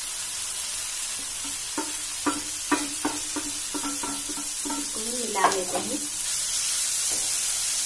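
Tomato-pea masala sizzling steadily in a frying pan as grated paneer goes in. A wooden spatula knocks and scrapes against a steel plate, making a run of ringing clinks from about two to six seconds in, busiest near the end of that run.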